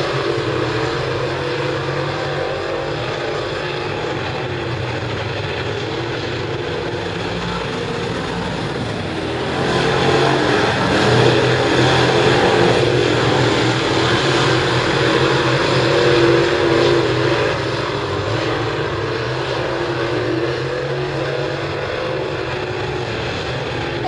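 A field of dirt late model race cars with V8 engines running hard around a dirt oval. The engines get louder for several seconds in the middle, then ease back.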